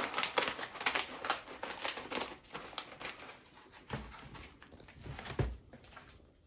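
A plastic packet of dried goji berries crinkling and rustling as it is handled, the crackling dense at first and then thinning out, with two soft thumps later on.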